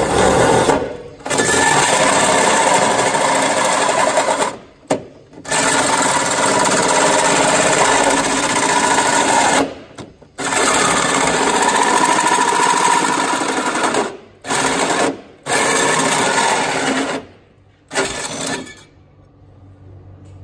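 Cordless drill running a large hole saw through a sheet-metal body panel, cutting in long bursts broken by several short pauses, until the saw breaks through and stops near the end.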